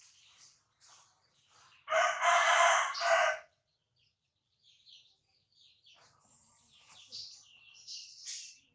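A rooster crows once, about two seconds in, lasting about a second and a half, over faint, scattered chirping of small birds.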